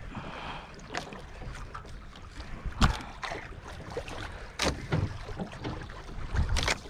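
Water slapping against a small outrigger boat drifting at sea, with irregular knocks and thumps against the hull.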